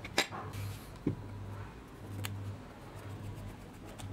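A few sharp clicks and a dull knock from the vintage drill's metal housing being handled on a cloth, over a faint low hum.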